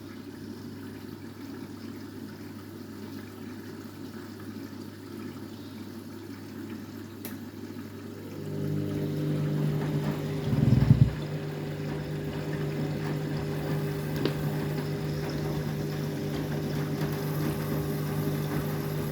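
Washing machine filling with water for its rinse: water running in over a low steady hum. About eight seconds in a louder hum starts and carries on, with a short thud a couple of seconds later.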